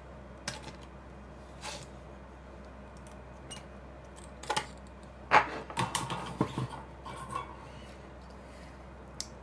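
Scattered small clicks and metallic taps of hand tools on a camera circuit board during desoldering, with the sharpest click about five seconds in and a quick run of smaller ones just after.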